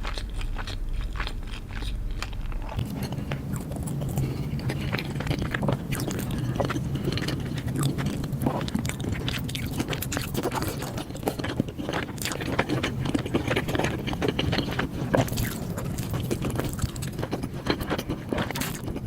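Close-miked eating: chewing and crunching bites of food, a dense run of sharp crackles and wet mouth sounds.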